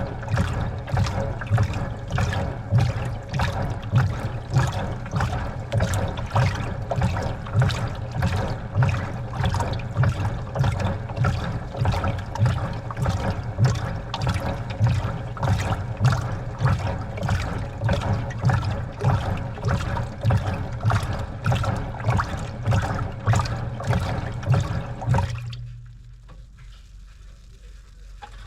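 Washing machine sloshing and churning water in its drum, with a regular surge about twice a second. About 25 seconds in the churning stops, leaving a quieter low hum.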